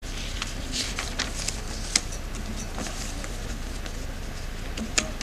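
Rustling and scattered sharp clicks of papers being handled at a table near the microphone, over a steady low hum.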